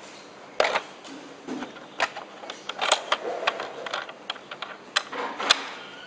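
An uneven series of sharp clicks and knocks from hands working the metal locks and plastic frames of LED display rental cabinets, loudest about five and a half seconds in.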